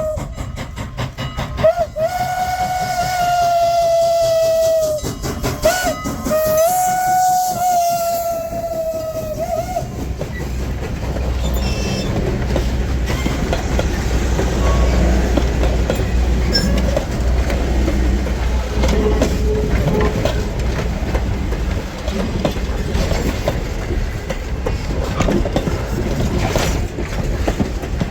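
Pennsylvania Railroad Banshee steam whistle on 2-6-0 Mogul steam locomotive CN No. 89 blowing a long blast, a couple of short toots and another long blast, ending about ten seconds in. The locomotive and its train then roll past with a steady low rumble and the clicking of wheels over rail joints.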